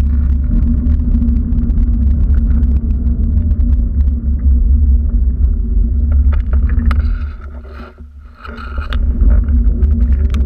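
Loud low rumble on a handheld GoPro's microphone as the walker moves along, with cars passing on the road beside the path. The rumble drops away for about a second some eight seconds in.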